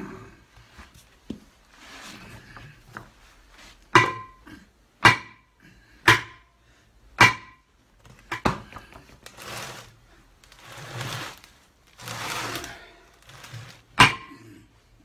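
Sledgehammer blows on a lorry's front hub and brake drum assembly, driving the hub out of the drum. About five sharp metallic strikes roughly a second apart, each with a short ring, then softer scuffing noises, and one more strike near the end.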